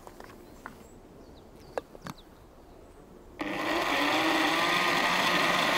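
A few light clicks, then a little past halfway a countertop blender starts abruptly and runs steadily at speed, pureeing vegetables and beer into a soup.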